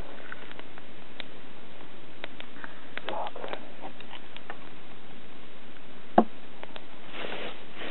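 Wood campfire crackling: scattered small snaps and clicks, with one loud pop about six seconds in.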